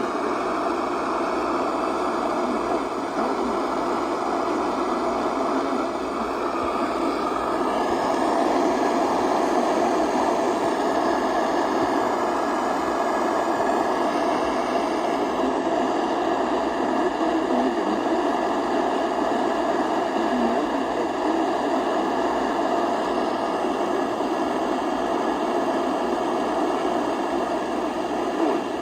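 Steady radio static: an even hiss and rumble from a receiver picking up no programme, with faint drifting whistles in it around a quarter of the way through.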